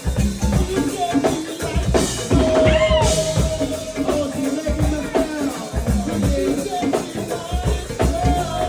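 Live band playing a jazzy number, with a drum kit keeping a steady beat on kick drum and snare. A long held note begins a couple of seconds in.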